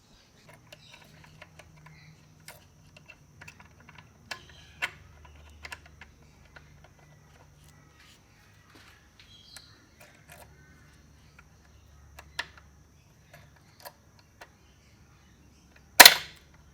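Scattered light clicks and taps of hands handling metal parts and tools, with one loud sharp knock near the end.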